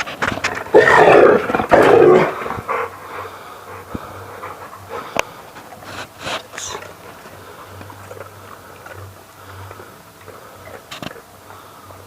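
Two loud, rough animal outbursts about a second in, then quieter scuffling with a few clicks.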